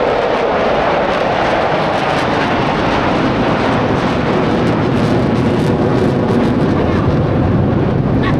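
Formation of fighter jets flying low overhead: a loud, continuous jet roar that drops in pitch as they pass and deepens toward the end.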